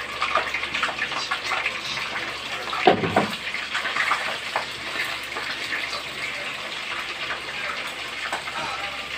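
Whole fish frying in hot oil in a pan, sizzling with dense crackling and popping. About three seconds in there is a brief louder knock as metal tongs move the fish in the pan.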